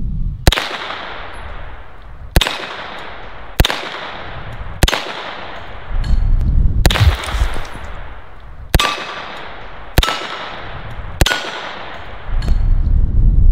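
Single 9mm shots from a short-barrelled HK SP5, about eight of them fired one at a time a second or two apart. Each shot is followed by the ring of a struck steel target plate.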